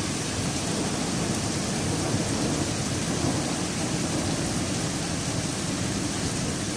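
Steady downpour of rain and hail during a thunderstorm, an even hiss with a low, continuous rumble underneath.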